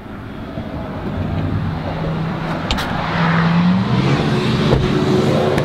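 An engine runs nearby, a steady low drone that grows louder, with a higher tone joining about four seconds in and a few light clicks.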